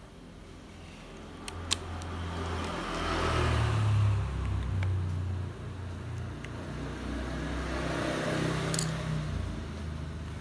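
Motor vehicles passing on a nearby road: a low engine and road rumble that swells twice, with a few sharp plastic clicks as the phone's back cover is handled.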